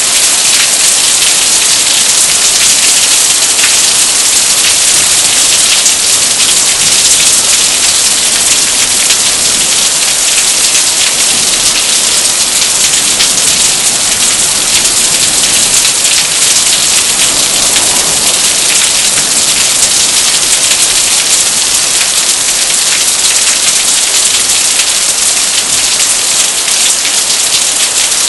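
Heavy thunderstorm downpour: rain falling steadily, a loud, dense, even hiss of drops.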